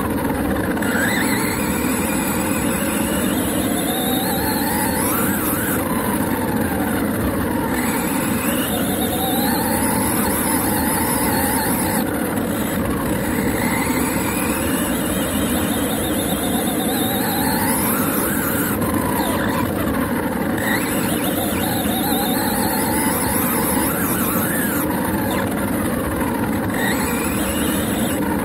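Onboard sound of an HSP radio-controlled car running across grass: the motor's whine rises and falls over and over as it speeds up and slows, over a steady rumble of tyres and chassis on the lawn.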